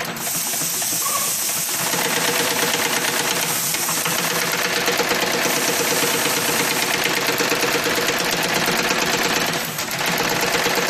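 High-speed brush tufting machine running, its tufting head setting bristle tufts into brush handles with a steady, rapid mechanical clatter. The sound dips briefly near the end, then carries on.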